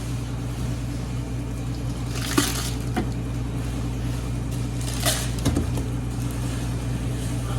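A steady machine hum, with a brief hiss or rustle about two seconds in, another about five seconds in, and a few light clicks.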